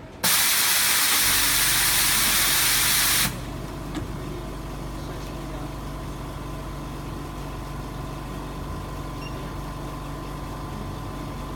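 A flex cable laminating machine gives a loud, steady hiss for about three seconds that stops sharply. After it, a low steady hum with a faint high tone runs on.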